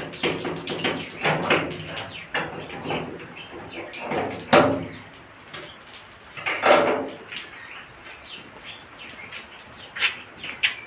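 Steel gate's lock and latch being unlocked and worked by hand: a series of metal clanks and rattles with ringing, the loudest about four and a half and seven seconds in. Birds chirp in the background.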